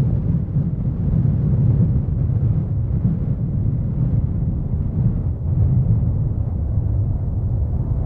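Strong gusty wind buffeting the microphone: a loud, low, fluctuating rumble.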